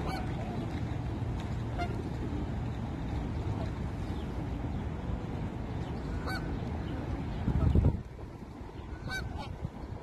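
Canada geese giving a few short honks, spaced out, two close together near the end, over a steady low background rumble. A brief, louder low rumble comes shortly before the last honks.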